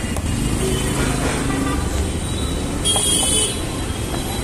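Street traffic rumbling steadily, with a short high-pitched toot about three seconds in.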